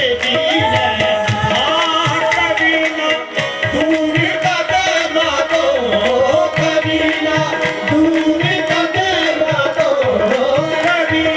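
Qawwali music with fast, steady tabla drumming under a gliding melody line, without sung words.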